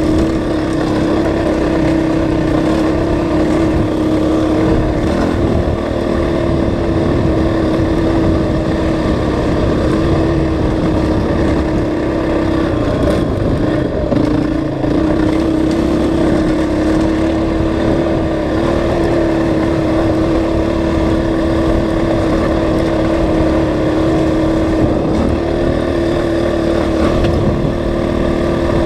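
Dirt bike engine running at a steady cruising pace, holding one even pitch, with a brief drop in revs about fourteen seconds in before it picks back up.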